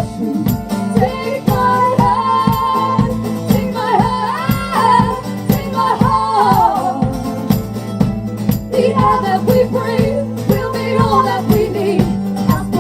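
Live band music: a sung melody with long held, bending notes over a steady strummed rhythm.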